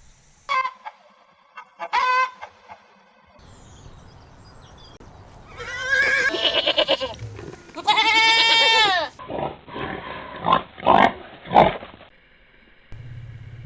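Goats bleating: a run of separate calls, two short ones at first, then longer wavering bleats, and several short sharp cries near the end.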